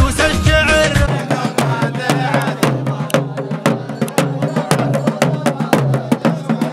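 Recorded music for about the first second, then a cut to live traditional Omani drumming: hand-beaten barrel drums struck in a quick, uneven rhythm, with a low chant of men's voices under it.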